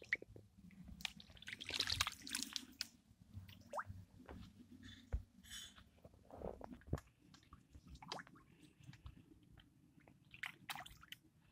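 Fish feeding on a floating piece of bread at the water's surface, making irregular wet smacking and slurping sounds, with a thicker cluster about two seconds in and another near the end.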